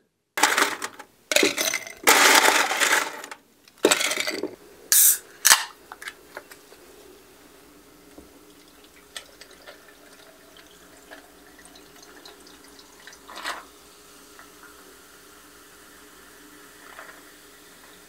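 Ice cubes clattering and liquid pouring in loud, noisy bursts for the first few seconds, with two sharp clinks just after. A soft fizzing crackle of cola over ice follows.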